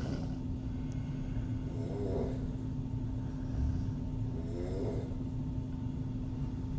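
A woman snoring through her open mouth in a slow, regular rhythm, two snores about three seconds apart, over a steady low hum.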